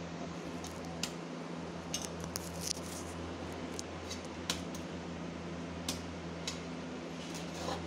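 Scattered light clicks and taps of kitchen utensils, a jar and spoon over a steel plate, above a steady low hum.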